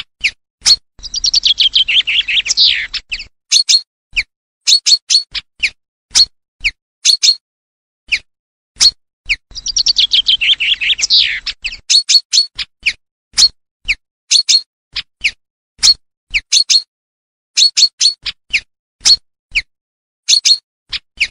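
Recorded common chaffinch song played as a lure. Two song phrases, about eight seconds apart, each a fast run of notes falling in pitch and ending in a flourish. Between them come short, sharp single and double call notes, repeated at irregular intervals.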